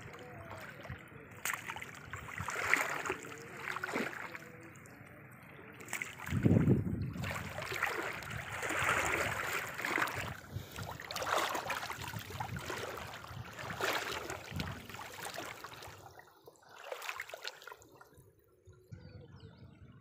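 Water splashing, sloshing and dripping as a fishing net is hauled up out of shallow lake water, in irregular bursts. A louder thump comes about six seconds in, and it grows quieter near the end.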